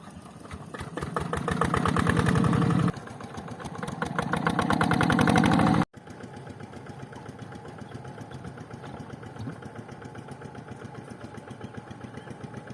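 Rice-paddy tractor engine chugging with rapid, even firing pulses. It grows louder twice over the first six seconds, cuts off abruptly, then runs on quieter and steadier.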